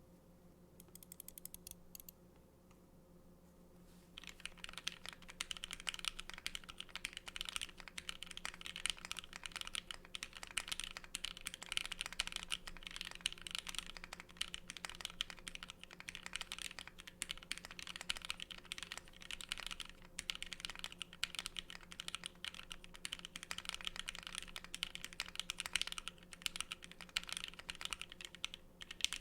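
Typing on a 40% mechanical keyboard, an ai03 × ION Equinox with plateless gasket mount, Alpaca switches lubed with Krytox 205/105 and filmed, and DSA keycaps. A few light taps come first, then from about four seconds in a fast, continuous patter of keystrokes.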